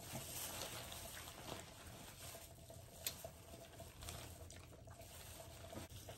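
Faint wet handling of sauced food inside clear plastic bags, fingers picking and peeling pieces, with a few soft clicks and light rustle.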